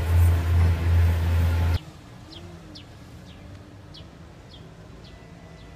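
Diesel railcar engine running low and loud as the AT-400 railcar pulls away, cut off abruptly about two seconds in. Then quieter ambience with a small bird chirping several times in short, falling notes.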